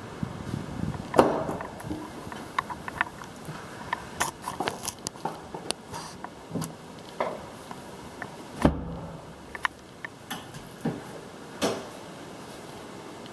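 Footsteps on wooden flooring in an empty room, with irregular clicks and knocks. A louder knock comes about a second in and a dull thud near nine seconds.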